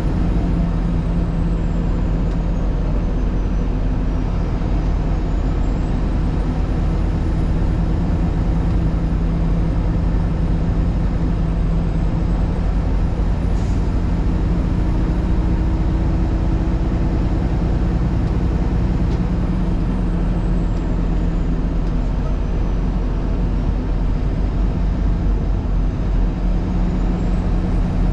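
Vehicle driving at a steady speed: a continuous engine hum with tyre and road noise.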